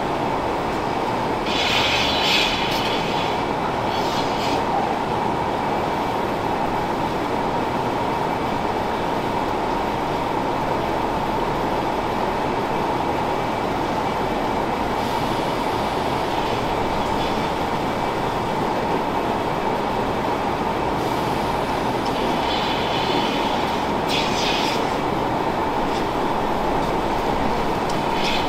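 Dairy milking parlor equipment running steadily, a constant mechanical drone of the milking system, with a few short bursts of hissing air spread through.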